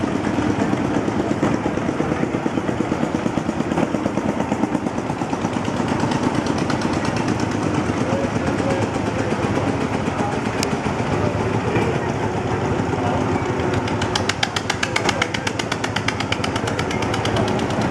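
Svoboda DK15 vintage tractor's engine running as the tractor drives slowly past. From about three-quarters of the way through, a second old tractor's engine with a rapid, even, sharp popping beat comes in and stands out.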